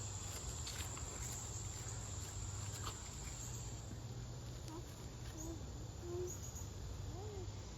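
Steady high-pitched insect trilling that fades out about halfway through, over a low steady hum, with faint distant voices in the second half.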